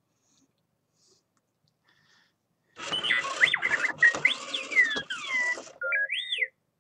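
Astromech droid toy from Galaxy's Edge beeping and whistling in quick gliding chirps, with stepped beeps at the end. The burst starts about three seconds in after a silence, and it is the droid's reaction to picking up a droid interaction beacon broadcast from a phone.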